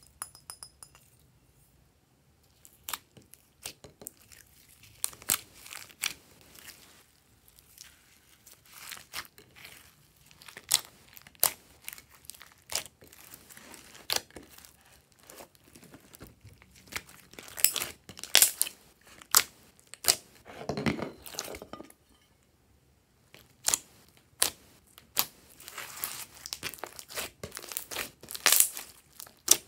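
Hands squishing, kneading and stretching glossy slime mixed with foam beads: irregular sticky pops, crackles and crinkling snaps, with a longer, lower squelch about two-thirds of the way through.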